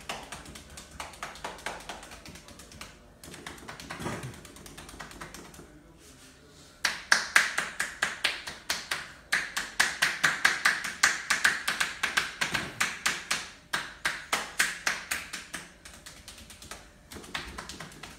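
Percussive massage: hands striking the body in quick, even taps, several a second. The taps are softer at first, turn much louder about seven seconds in, and ease off near the end.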